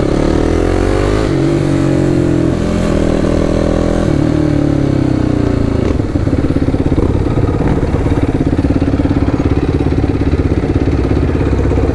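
Quad bike engine accelerating, its pitch rising and then dropping back at each gear change several times. From about halfway through it runs at a steadier, lower throttle with a pulsing beat.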